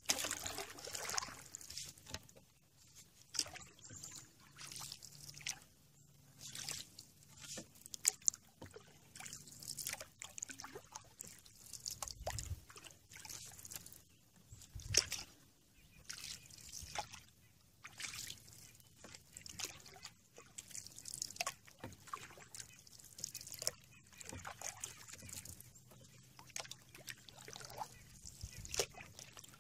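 Canoe paddling: a paddle swishing through calm river water and dripping, in irregular strokes every second or two, with two low thumps about halfway through.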